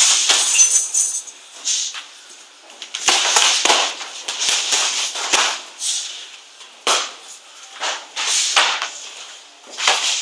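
Irregular sharp slaps of gloved punches and kicks landing during kickboxing sparring, several hits a second in quick flurries with short gaps between them.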